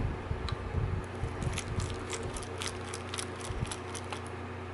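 Micro screwdriver turning out a tiny screw from the CCD plate of a Sony HX50V lens unit: a run of quick, light metal clicks from about a second and a half in until a little past four seconds.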